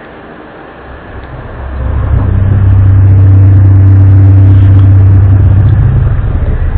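Loud, low droning hum that swells in over about a second and then holds steady, a deep tone with a few fainter overtones above it, like a heavy engine or a horn. It dips briefly at the very end.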